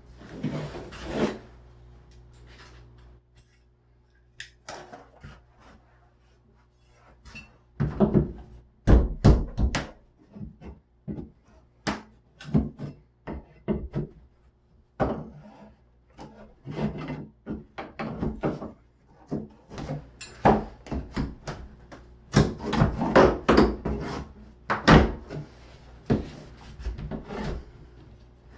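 Irregular wooden knocks, clicks and scraping as door trim is worked loose and handled, with a few louder clusters of clatter about 8–10 seconds in and again around 22–25 seconds.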